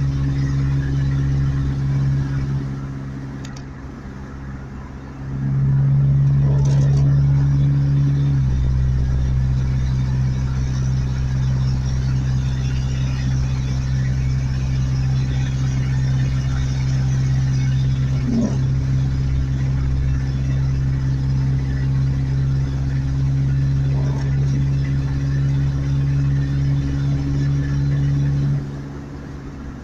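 A vehicle engine running with a steady low hum. It dips for a few seconds near the start, comes back louder about five seconds in, and drops again shortly before the end.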